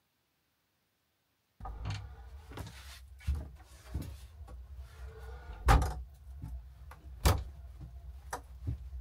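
Wooden plank door with a metal latch being opened and banged shut as someone comes in, with knocks and shuffling; the sound starts suddenly after a second and a half of silence, and two loud bangs come past the middle.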